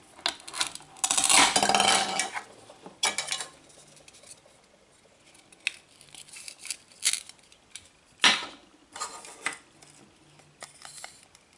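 Toy wooden or plastic knife and toy vegetables clattering on a cutting board, with a dense tearing crackle about a second in as a Velcro-joined toy potato is pulled apart, and further short rips and clicks later.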